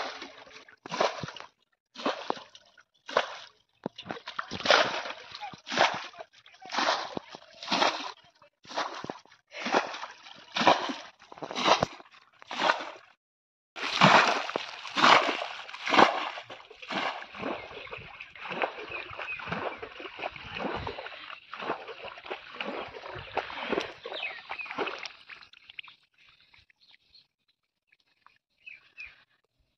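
Muddy water being bailed out of a shallow mud hole with a steel bowl and thrown aside, one splash about every second. After a short break comes a denser run of splashing that dies away about four seconds before the end.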